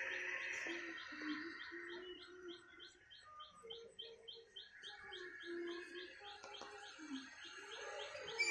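Birds calling: a short high chirp repeated steadily about three to four times a second, over lower notes that step up and down in pitch.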